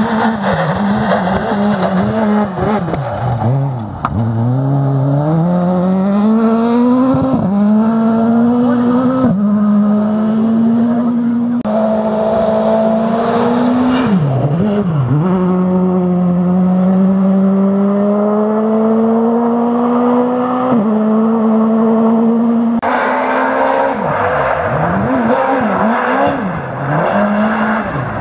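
Škoda Fabia S2000 rally car's 2.0-litre naturally aspirated four-cylinder engine at full throttle. It climbs through the gears with quick upshifts, and a few times lifts off and blips the throttle on downshifts for corners before pulling hard again.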